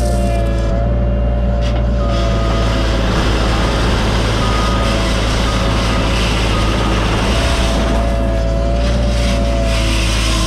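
Cat 303.5 mini excavator's diesel engine running steadily at working revs, with a higher whine that comes and goes over it.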